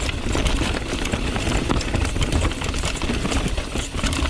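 Mountain bike riding fast down a rough trail: a steady rumble of wind on the microphone with a constant clatter of tyres, chain and frame over the ground.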